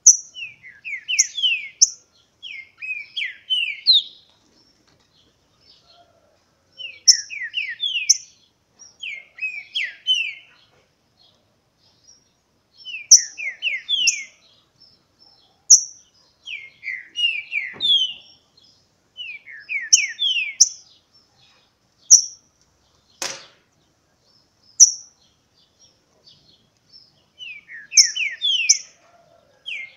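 Caged green-winged saltators (trinca-ferro) singing their short song: bursts of quick down-slurred whistles, repeated every few seconds with brief pauses between them. There is a single sharp knock about two-thirds of the way through.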